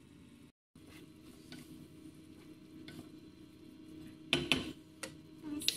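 Risotto rice sizzling faintly in a nonstick frying pan, with a brief total gap in the sound near the start. About four seconds in, a wooden spatula stirs and scrapes the rice with a few loud strokes, followed by a couple of sharp clicks.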